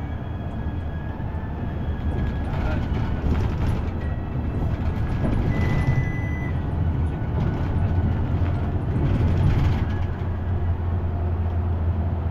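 City bus engine and drivetrain running while driving, heard from inside the cabin: a steady low drone under road noise, with a brief high tone about six seconds in.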